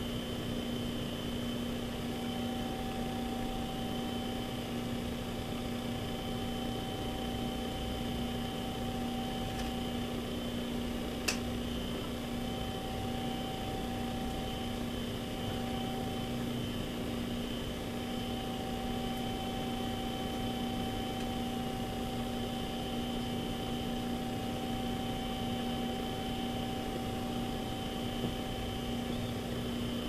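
Steady electrical hum and hiss with a few fixed tones, with one sharp click about eleven seconds in.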